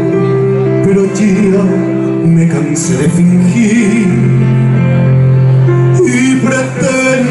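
A man singing through a microphone, holding long notes with vibrato, accompanied on a Korg electronic keyboard.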